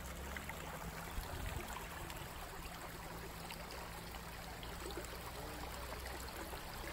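Shallow stream of water flowing and trickling over rocks and debris in a small channel, steady throughout, with a low steady hum beneath.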